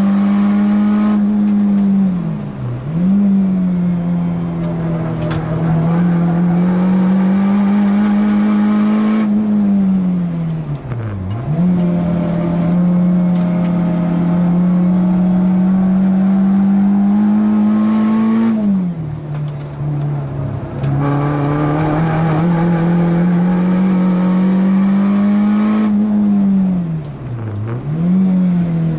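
Renault Clio 2 RS's 2.0-litre four-cylinder engine, heard from inside the cabin, pulling hard at racing pace. Its note climbs steadily and drops sharply four times as the driver lifts off and changes gear.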